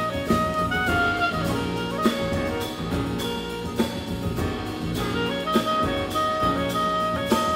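Small jazz group playing: a clarinet holds long notes, changing pitch a couple of times, over piano, double bass and a drum kit with regular cymbal strokes.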